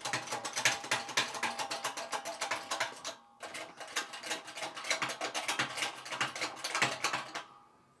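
Harbor Freight shop press being worked to break the bead of a motorcycle rear tire: a rapid run of ratcheting mechanical clicks, a short pause a little after three seconds in, then more clicking that stops just before the end.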